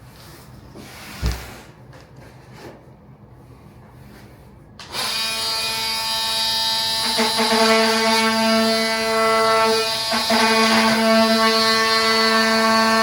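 A single knock, then about five seconds in a power tool starts abruptly and runs with a steady whine, dipping briefly a few times, as it cuts a vinyl flooring plank.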